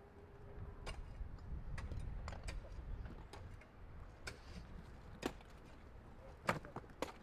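Scattered sharp knocks and clicks at irregular intervals, the loudest about six and a half seconds in, over a low rumble that swells in the first few seconds.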